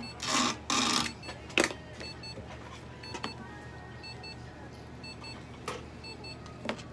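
Three short bursts of hissing noise in the first second and a sharp click about a second and a half in, over a faint electronic double beep that repeats about once a second and a steady low hum.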